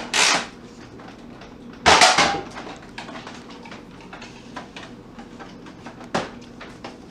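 A sharp clatter about two seconds in, then faint clicks and taps and another short knock near the end: Nerf blasters being fired and darts striking empty soda cans.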